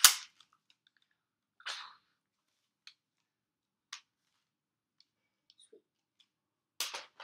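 Nerf Sharpfire blaster being primed and fired: a sharp plastic snap at the start, a short hissing burst about two seconds in, single clicks, then a quick double click near the end. The owner fears the blaster is broken.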